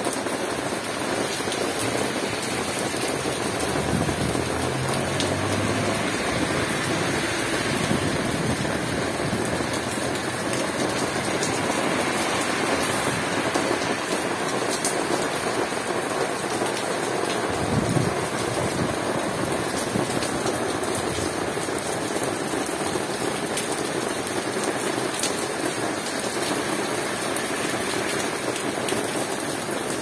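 Steady rain falling on roofs and a wet street, an even hiss that holds at one level throughout.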